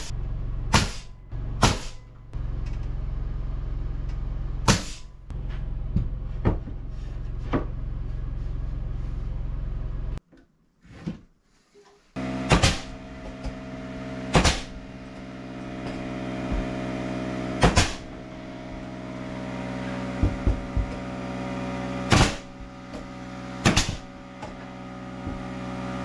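Pneumatic nail gun firing nails one shot at a time into wooden trim boards, about a dozen sharp shots spaced a second or more apart, over a steady hum.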